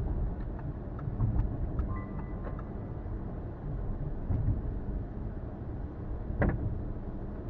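A car driving, heard from inside the cabin: a steady low rumble of engine and tyre noise on the road, with a few faint ticks and one sharp knock near the end.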